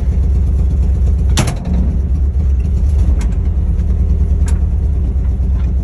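Steady low rumble inside the cabin of a vintage Volkswagen as it moves, with one sharp click about a second and a half in.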